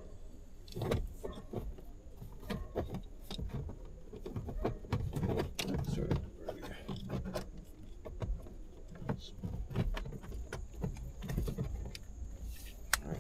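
Irregular plastic clicks, knocks and rattles of a Volkswagen Amarok instrument cluster being plugged into its wiring harness and worked into its opening in the dashboard.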